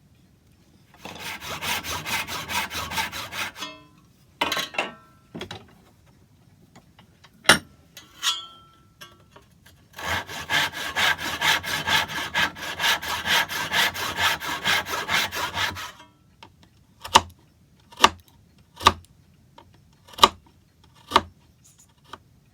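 Hand saw cutting wood in two bouts of quick, even back-and-forth strokes, about three a second. A few sharp knocks follow near the end.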